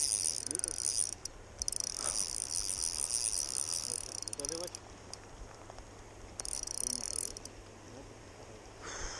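Spinning reel drag buzzing in rapid high-pitched clicks as a hooked fish pulls line off against very thin 0.12 mm line, in three runs: about a second, then about three seconds, then a short burst past the middle.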